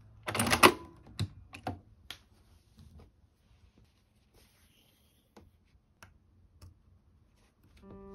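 Domestic sewing machine stitching in one short burst, followed by scattered light clicks and taps of handwork on fabric and a metal purse frame. Soft piano music comes in near the end.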